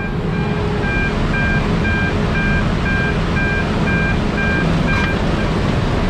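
Spudnik potato conveyor machinery running with a loud, steady mechanical rumble, while an electronic warning beeper sounds about twice a second and stops about five seconds in.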